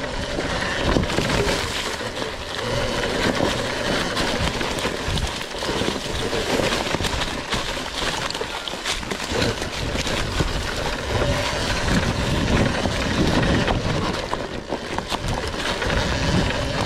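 RFN electric dirt bike ridden over rocks and dry leaf litter: a steady rush of tyre and trail noise broken by many sharp knocks and clatters as the wheels hit rocks.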